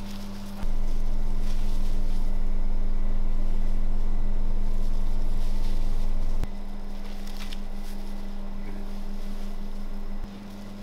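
Steady low electrical hum, with its level stepping up sharply about half a second in, dropping about six and a half seconds in and again near the end. Faint handling sounds come through about seven and a half seconds in.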